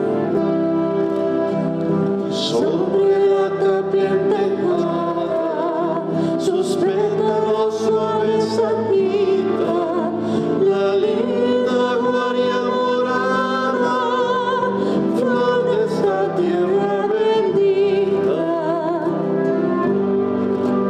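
Live acoustic trio performing: a woman singing into a microphone, accompanied by flute and acoustic guitar, her voice coming in about two seconds in.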